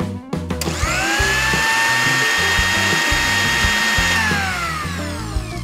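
A toy blender's small motor running with a high-pitched whine: it spins up about a second in, runs steadily, and winds down over the last second or so.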